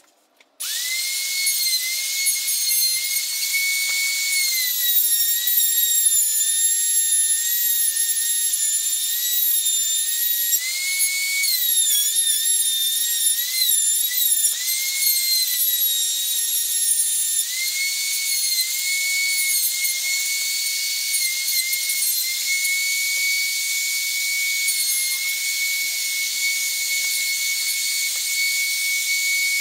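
Electric router switched on about half a second in and running with a steady high-pitched whine, cutting a tenon into the end of a 2x4. Its pitch dips and wavers as the bit bites into the wood, most often in the middle stretch.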